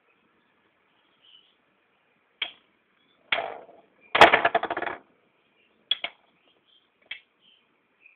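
Metal-wheel Beyblade spinning tops clattering against each other and the plastic stadium: a few sharp clicks, then a loud burst of rapid rattling lasting under a second about four seconds in, followed by more single clicks.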